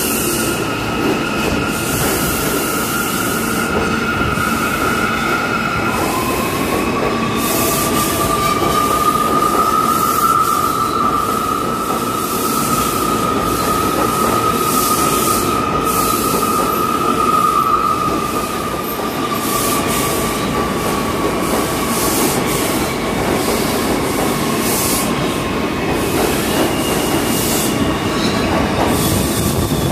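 New York City subway train moving through an underground station, with a continuous rumble and clatter of wheels on rails and a steady high squeal that drops and shifts pitch about six seconds in.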